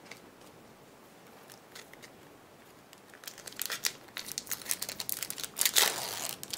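Pokémon card packaging crinkling and tearing as a new booster pack is opened: a quiet stretch, then crisp crackly rustling from about three seconds in, loudest near the end.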